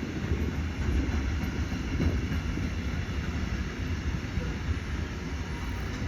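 A train running, a steady low rumble.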